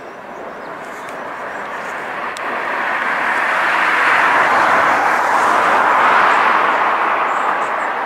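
A vehicle passing by: a steady rushing noise that swells to a peak about five seconds in and then fades.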